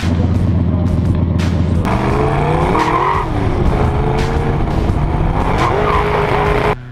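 A Lamborghini Diablo's V12 idles with a steady low rumble from its exhaust pipes. About two seconds in, it gives way to a drift car's engine revving up and down, with bursts of tyre squeal.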